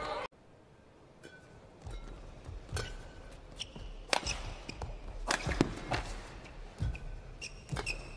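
Badminton play: sharp racket strikes on the shuttlecock, with short squeaks of court shoes on the mat between them.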